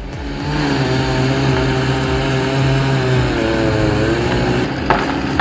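Engine of tree-felling machinery running steadily at high revs, its pitch sagging briefly about four seconds in before the sound changes near the end.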